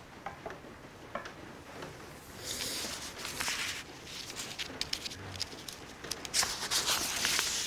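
Soft rustling with scattered light clicks, in two spells: one a few seconds in and a louder one building near the end.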